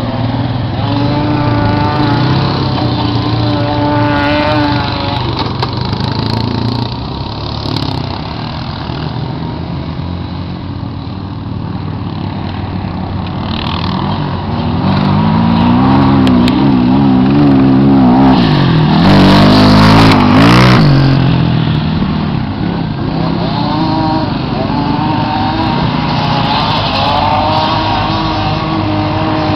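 ATV engines running and revving on a sand hill climb, the pitch rising and falling as the throttle is worked. It is loudest past the middle, where an engine revs up and down hard close by.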